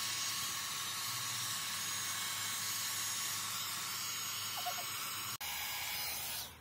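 Dyson Airwrap-style dupe hot-air styler running, its fan blowing a steady airy hiss through the curling barrel as a lock of hair is wound on it. There is a momentary dropout about five seconds in.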